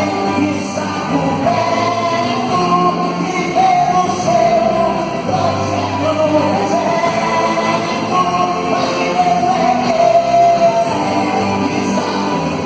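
A band playing gospel worship music with singing over it, guitar and a steady full-band backing.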